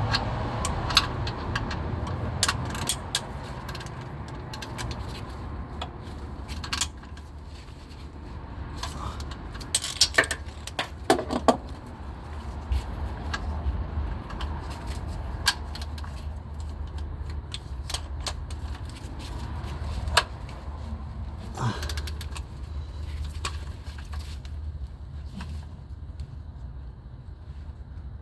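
Scattered metallic clicks and clinks of hand tools being worked and handled, over a steady low hum, with a quick cluster of clicks about ten seconds in.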